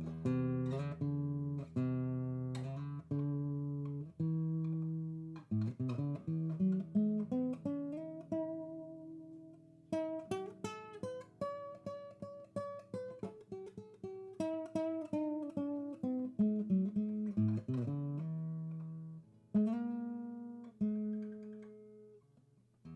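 Background music on acoustic guitar, with plucked single notes and strummed chords that ring and die away.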